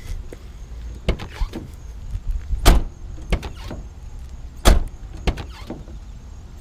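Dull knocks and thumps from a Ford Crown Victoria's body, about one a second, over a steady low rumble, with no squeak to be heard: the hood hinges have just been lubricated with WD-40, which the owner takes to have cured the squeak.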